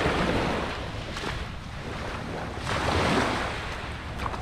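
Small waves washing up on a sandy beach, swelling twice: at the start and again about three seconds in. Wind rumbles on the microphone.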